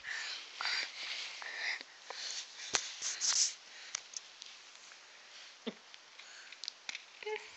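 Breathy sniffs and snuffles: a run of short hissy bursts in the first three and a half seconds, with a couple of sharp clicks, then fainter sniffs.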